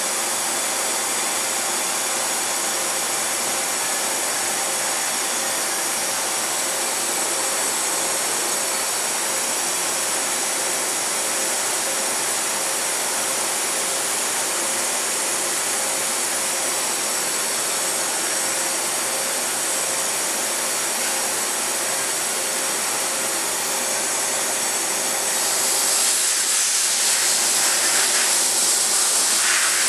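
DMG DMU 50 five-axis vertical machining center running a machining cycle: a steady mechanical running noise with a few steady tones. About 25 seconds in, a louder hiss joins it.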